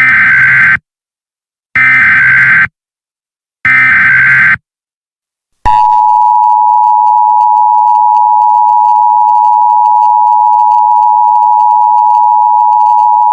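Emergency Alert System header: three short bursts of digital SAME data tones, each just under a second, then about six seconds in the steady two-tone EAS attention signal begins.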